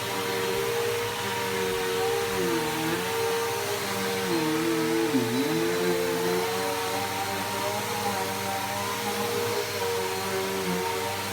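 Bissell PowerForce Helix Turbo upright vacuum cleaner running, a steady motor whine over the rush of air. The pitch sags briefly twice, about two and a half and five seconds in, as the motor is loaded.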